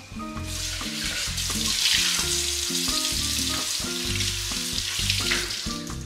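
Water from a kitchen tap running onto a stainless steel pot lid in the sink, a steady hiss that stops shortly before the end, over background music.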